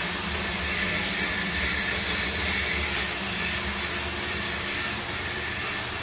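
Moyer Diebel MD1000HT commercial dishwasher running: a steady motor hum under an even hiss, with no change in level.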